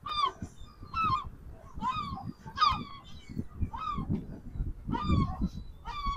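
Waterfowl giving short honking calls, about seven in a row at roughly one a second, each dropping slightly in pitch, over a low rumble.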